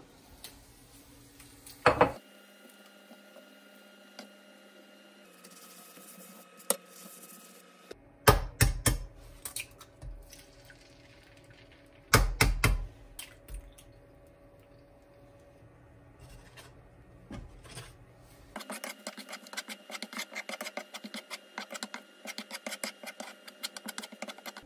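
Eggs cracked and dropped into a nonstick frying pan, with two clusters of sharp knocks about four seconds apart. Then a spatula scrambles the eggs against the pan in quick, repeated scrapes and taps over the last six seconds.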